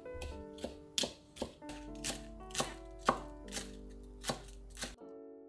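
Kitchen knife shredding cabbage on a wooden cutting board: crisp slicing strokes about twice a second, each ending in a knock on the board, stopping abruptly near the end.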